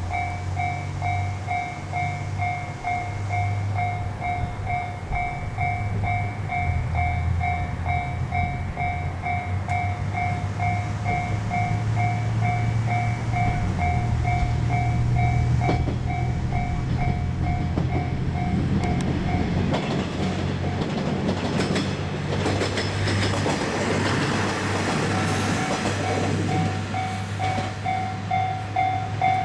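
Japanese level crossing warning bell ringing steadily about twice a second over the low drone of a Kisuki Line diesel train's engine. About twenty seconds in, the train passes over the crossing with a rush of wheel-on-rail noise and clatter, and the bell is heard again as it goes by.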